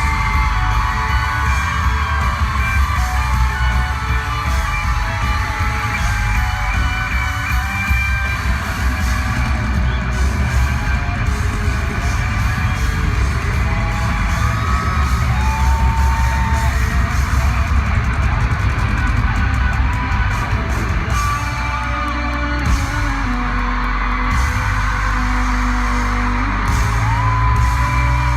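Pop-rock band playing live through a loud concert PA, with singing and a screaming, cheering crowd around the microphone. The heavy bass drops back about two-thirds of the way through and returns near the end.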